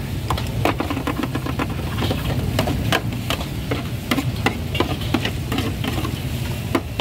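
Food-market ambience: a steady low engine-like hum under irregular sharp clinks and knocks, as of utensils and cookware.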